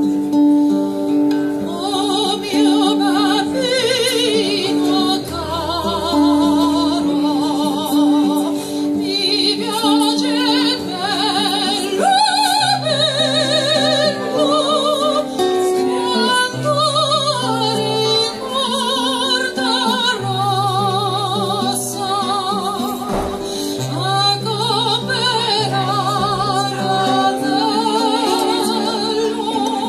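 Live music: a singer in an operatic style, with strong vibrato, accompanied by a plucked string instrument.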